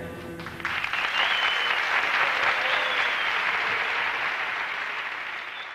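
The band's last chord dies away, and about half a second in an audience breaks into applause, which slowly fades.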